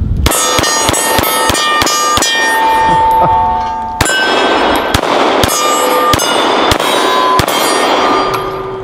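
A rapid string of 9mm pistol shots from a Gen 4 Glock 19, a magazine emptied fast. Steel targets ring at several pitches as the hits land.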